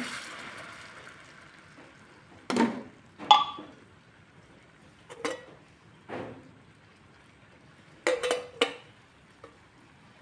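Thick sauce from an upturned tin of sardines sliding and plopping into a frying pan, fading out, followed by scattered sharp clinks and knocks of a tin can and metal cookware being handled against the pan, some ringing briefly. The loudest knock comes about three seconds in, and a quick cluster of three comes near the end.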